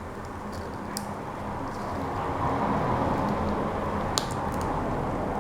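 Adhesive tape being peeled off the back of a laptop LCD panel over its video cable connector: a soft, rasping noise that grows a little louder partway through, with a few light clicks of fingers handling the panel.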